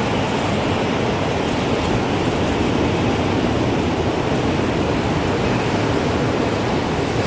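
Wind rushing steadily, a deep even noise with no distinct chime strikes standing out.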